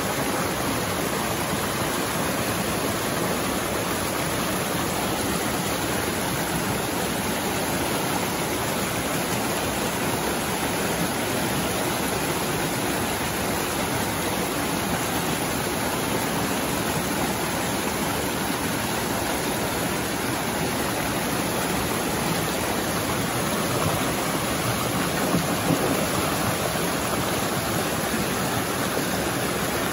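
A river flowing, an unbroken steady rush of water.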